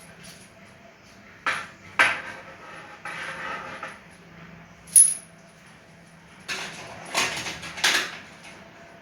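Tools and small metal parts clinking and knocking as a washing machine is worked on. There are single sharp clicks about one and a half, two and five seconds in, a short scrape just after three seconds, and a quick run of knocks near the end.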